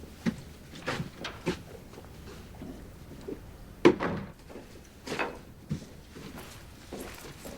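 A series of scattered knocks and thuds in a small room, the loudest a sharp hit about four seconds in.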